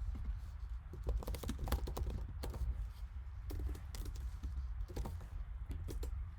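Typing on a computer keyboard: irregular light key clicks in small clusters, over a steady low hum.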